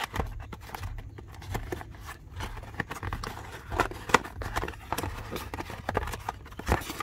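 A cardboard speaker box being opened and its packaging handled: irregular taps, clicks and scrapes of cardboard and paper over a steady low hum.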